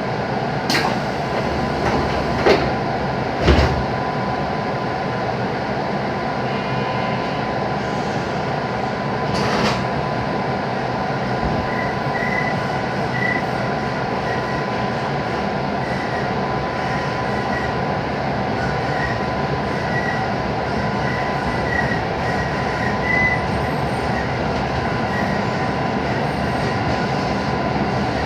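221 series electric train running along the line, with a steady rumble of wheels on rail. Four sharp clicks come in the first ten seconds, and a faint high wheel squeal comes and goes through the middle and later part.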